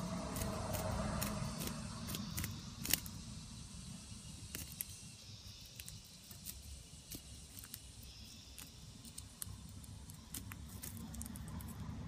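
Chinese bush-cricket (katydid) chewing through a cicada's hard shell: irregular crisp clicks and crackles, the sharpest snap about three seconds in, over a low steady rumble.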